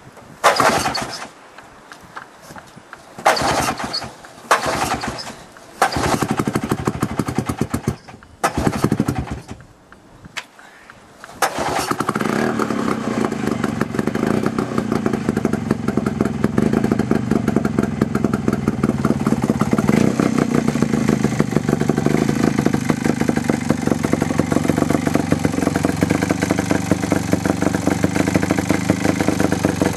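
1969 OMC Snow Cruiser 209E snowmobile's two-stroke engine being pull-started, its electric start not working: five short bursts as it fires briefly and dies, then about eleven seconds in it catches and settles into a steady idle.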